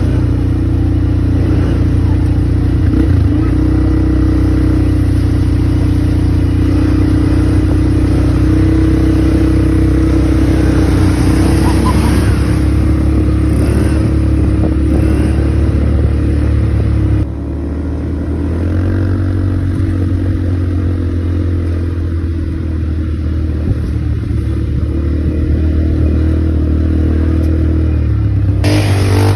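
ATV engine running steadily under throttle. It eases off abruptly about two-thirds of the way through and carries on more quietly.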